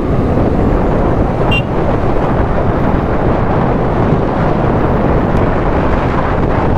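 Wind buffeting the microphone over the road and engine noise of a KTM Duke 390's single-cylinder engine as the motorcycle rides on and picks up speed. A brief high chirp sounds about a second and a half in.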